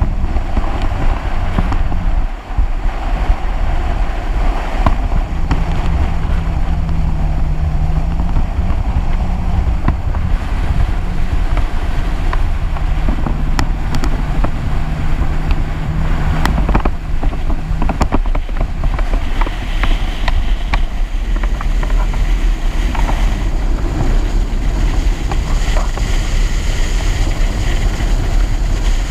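Jet ski engine running at speed, a steady drone mostly buried under wind buffeting the microphone and rushing water from the wake, with a few brief knocks midway.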